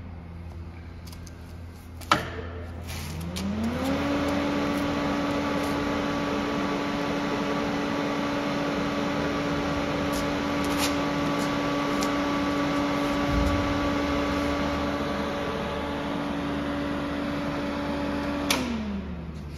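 Thermal Arc 300 GMS DC inverter arc welder switched on with a click, its cooling fan spinning up with a rising hum and then running steadily with a rush of air. About 16 seconds later another click switches it off and the hum falls away.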